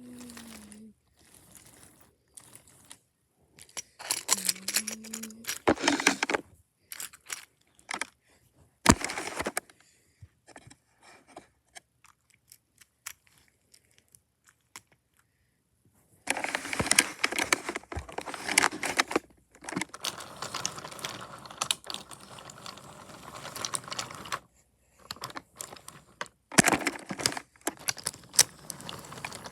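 Wooden toy trains clattering on a wooden track: scattered knocks and clicks, then a longer stretch of steady rattling from about halfway through, as of wheels rolling over the track joints. A short voice sound comes right at the start and again a few seconds later.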